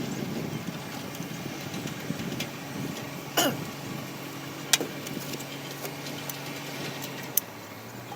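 Komatsu PC-200 excavator's diesel engine idling steadily. About three seconds in a sharp high call sweeps quickly downward, and a couple of sharp clicks come later.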